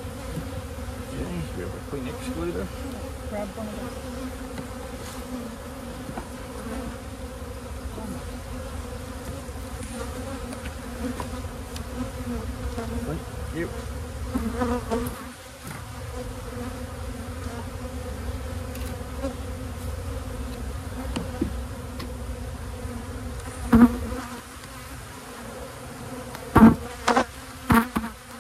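A steady hum of many honey bees flying around an open hive. A few sharp knocks come in the last few seconds.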